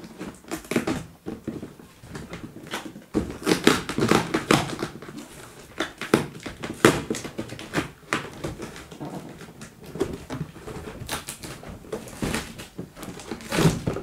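A cardboard carton being opened and handled: the flaps and an inner box scrape, rustle and knock against it in irregular bursts.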